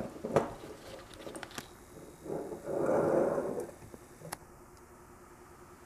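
Light clicks and taps of small plastic and metal cruise-control servo parts (valve body, solenoid coils) being handled on a workbench, with a soft noisy rush lasting about a second near the middle.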